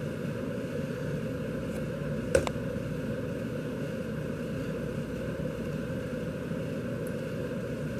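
Steady background room hum and hiss, with one sharp click about two and a half seconds in.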